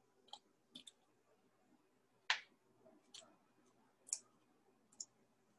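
Radish slices dropped one by one into a pan of broth, each landing with a short faint plop; about seven in all, the loudest a little over two seconds in.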